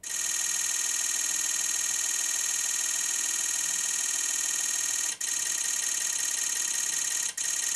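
Sony A1 camera firing a continuous high-speed burst in Hi+ drive mode, its shutter sound running as a rapid unbroken clatter during a buffer test. The burst breaks off briefly about five seconds in and again about seven seconds in.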